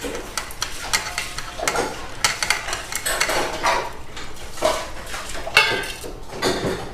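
Irregular clinks and scrapes of a spoon against metal kitchenware as dry spices such as sesame and coriander seeds are added.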